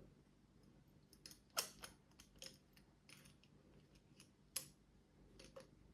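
Sparse light metallic clicks and taps from hex keys and scooter parts being handled while a bolt is tightened, with two sharper clicks about a second and a half in and again near four and a half seconds.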